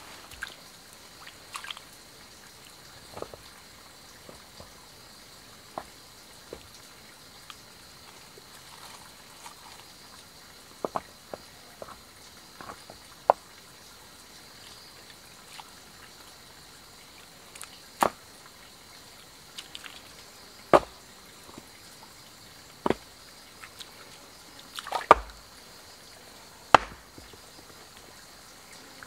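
Stones knocked against each other as they are set on a low rock wall, a series of separate sharp clacks, with small wet splashes and drips from bare feet and hands in shallow muddy water.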